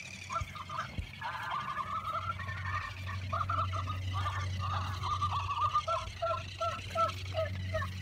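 Golden retriever puppies yipping and whining in a rapid string of short, high-pitched calls while they scuffle over a toy, ending in a run of evenly spaced yips near the end. A low steady hum sits underneath.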